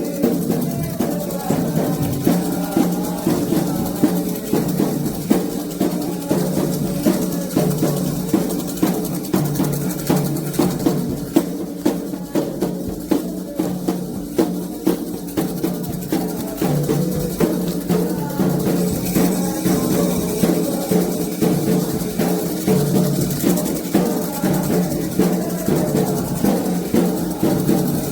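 Candomblé atabaque drums playing a steady, driving rhythm for the orixá's dance, with a struck bell keeping time.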